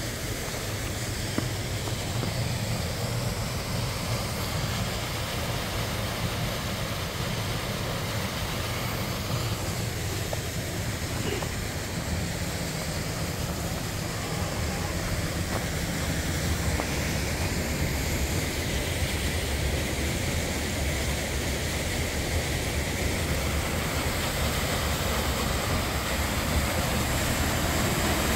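Steady rush of a waterfall and stream, growing louder near the end.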